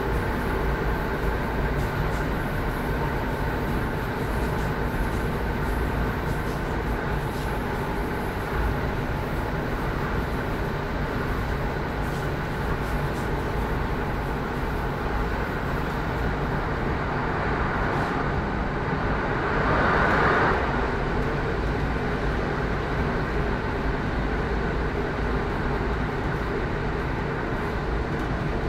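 Cabin noise inside a moving Class 156 Sprinter diesel multiple unit: the underfloor Cummins diesel engine and the wheels on the rails make a steady rumble. A brief louder rushing swell comes about twenty seconds in.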